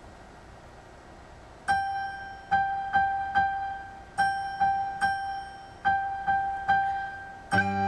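Keyboard intro in piano tone: about ten repeated notes on the same high pitch, each struck and fading, in a steady pulse starting a couple of seconds in. Near the end a held note enters, a soprano recorder starting to play over the accompaniment.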